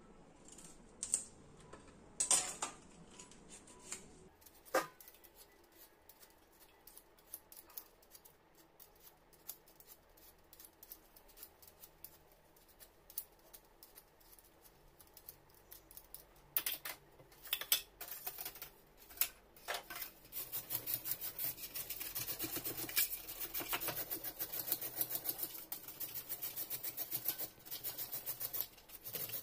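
Beetroot being grated by hand on a grater. There are a few scattered scrapes at first, then from about two-thirds of the way in a fast, even run of grating strokes.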